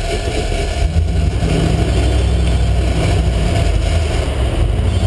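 Fishing boat's engine running steadily, a loud low rumble with water and wind noise over it.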